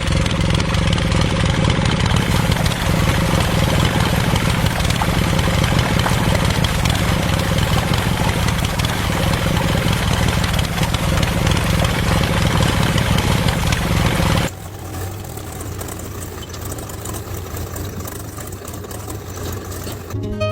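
An engine running steadily with a low hum. It drops abruptly to a quieter level about two-thirds of the way through.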